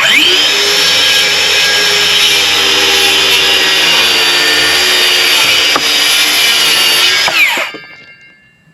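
Electric power saw spinning up, cutting steadily for about seven seconds, then winding down with a falling whine.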